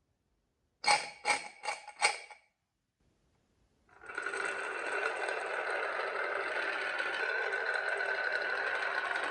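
Marble run toy: four quick, hard clacks about a second in, then from about four seconds in a steady whirring rattle that keeps going.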